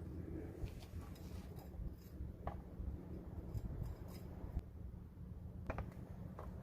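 Scattered light metallic clicks and clinks of truck hub parts being handled and fitted, a few separate ticks over a low steady rumble.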